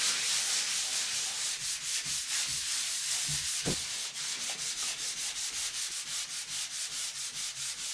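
A hand tool scraping and rubbing over a wall surface in fast, repeated back-and-forth strokes, which become an even rhythm of about three or four a second in the second half.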